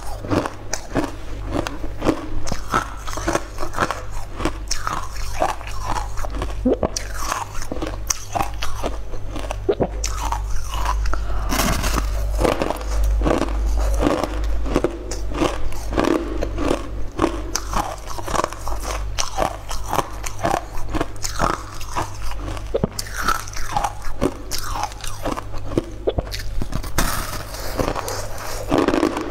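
Close-up biting and chewing of a hard, crystal-like purple food slab: a continuous run of crisp, irregular crunches as pieces are bitten off and ground between the teeth.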